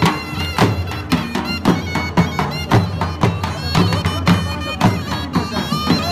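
Live Pashtun attan music: two dhol drums beating a steady rhythm of about two strokes a second under a surnai (double-reed shawm) playing a piercing, wavering melody.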